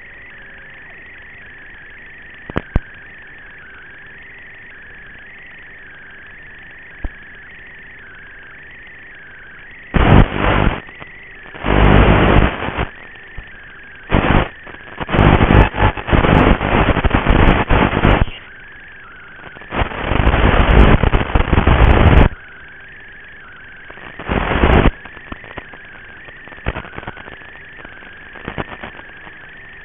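Analog FPV video link's audio channel: a steady hiss with a faint wavering whistle, broken about a third of the way in by several loud rushes of static, each one to three seconds long, the last ending a little past the four-fifths mark.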